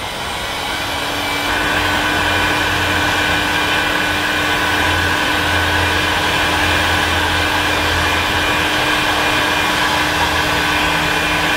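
Electric heat gun running: a fan's steady rush of air with a steady whine on top, building up over the first second or so, as it blows hot air onto heat-shrink tubing.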